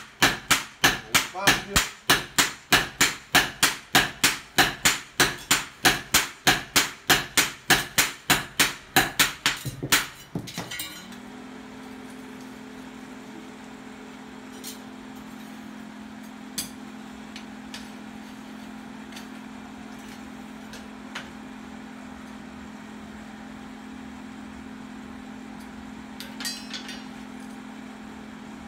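Two hammers striking a hot steel knife blade on a post anvil in fast alternating blows, about three to four a second, stopping about ten seconds in. Then a small motor hums steadily, the forge's air blower, with a few faint clinks.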